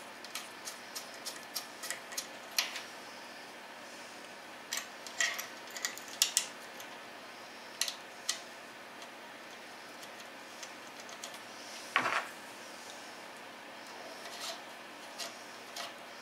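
Small metal hardware clicking and tapping as a limit-switch bracket, its posts and screws are fitted by hand to the gantry plate of a Shapeoko XXL CNC router. A quick even run of light clicks, about three a second, comes first, then scattered clicks and one heavier knock about twelve seconds in.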